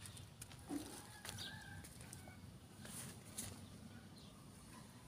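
Faint bird calls, a few short chirps about a second in, over quiet outdoor background noise with scattered soft clicks.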